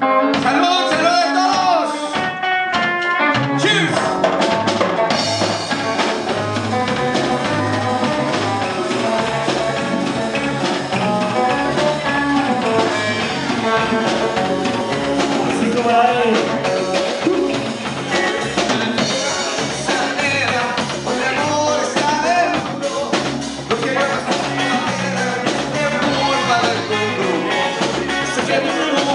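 A live rock band playing: electric guitar, bass guitar and drum kit, with a man singing lead into a microphone. The opening is stop-start, and the full band with bass and drums comes in about three seconds in.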